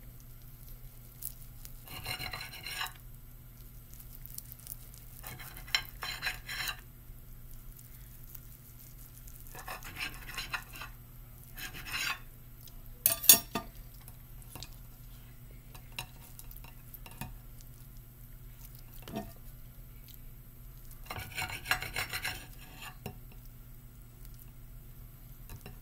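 Kitchen knife sawing through a nori-wrapped sushi roll in several short bouts, the blade scraping and clicking against the plate underneath, with one sharp click about halfway through.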